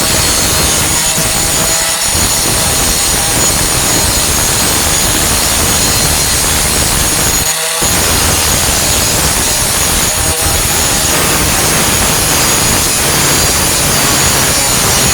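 4-1/2 in. angle grinder with a Type 27 grinding disc grinding down flux-core welds on a sheet-steel tailgate patch. It runs loud and steady, with a brief break about halfway through.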